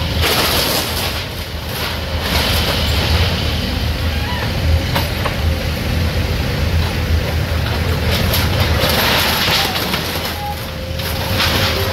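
Case backhoe loader's diesel engine running steadily under load as its bucket pushes apart a sheet-metal and wood structure, with one sharp knock about five seconds in.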